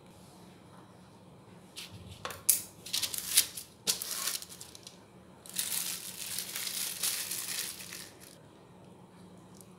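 Parchment paper crinkling as it is laid onto a baking tray: a few sharp crackles about two seconds in, then a longer rustle as hands smooth the sheet flat.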